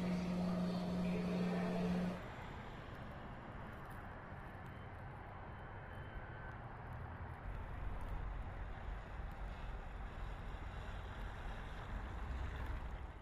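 A steady droning hum for about two seconds, then road traffic in a snowstorm: cars and trucks driving on a snowy road with an even noise. A low rumble grows louder a little past the middle.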